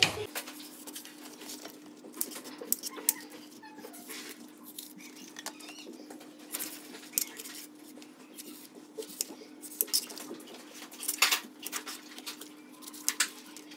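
Kitchen knife slicing okra on a plastic cutting board: irregular sharp taps of the blade striking the board.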